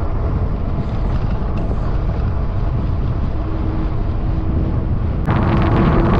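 Wind buffeting the microphone of a camera on an e-bike ridden uphill, a dense low rushing noise. About five seconds in it suddenly turns louder and brighter, with crackling.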